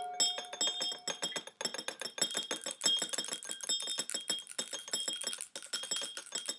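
A rapid, dense high-pitched tinkling of many small clicks with ringing tones, like a shimmering chime effect.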